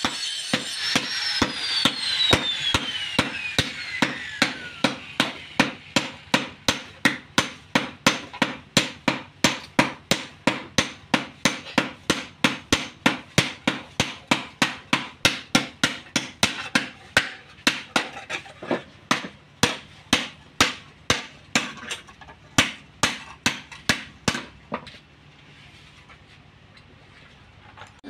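Hand hammer and sledgehammer striking a red-hot steel hoe blade on an anvil in a steady, rapid rhythm of about two to three ringing blows a second. This is hand forging of a hoe with steel from an old saw blade joined to its edge. The blows stop a few seconds before the end.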